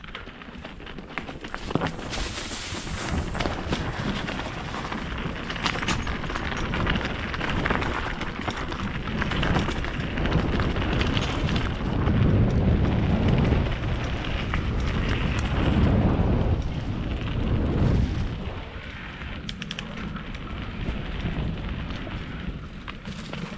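Mountain bike descending a rough trail at speed, heard from an action camera on the bike: wind rushing over the microphone, tyres rolling on the dirt and a constant rattle of knocks as the bike goes over bumps. The rush swells heavier from about twelve seconds in, then eases near the end.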